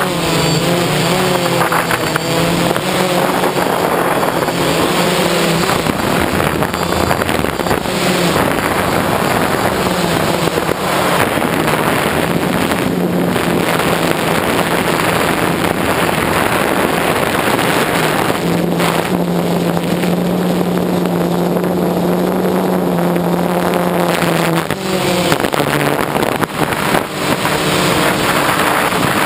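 DJI Phantom quadcopter's electric motors and propellers droning, heard up close through the camera mounted on the drone in flight. The hum holds steady and shifts up and down in pitch as the throttle changes.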